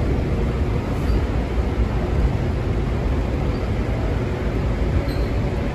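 Steady low rumble of a DC Metro railcar running along the track, heard from inside the car, with a few faint, brief high squeaks.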